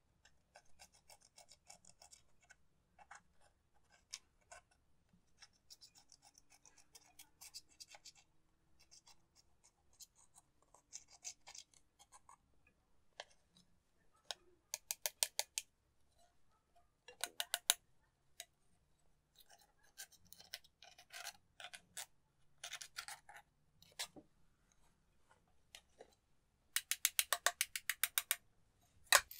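Pressed eyeshadow being scraped and crumbled out of a plastic palette pan with a small metal tool: fast runs of scratchy ticks that come and go, loudest near the end.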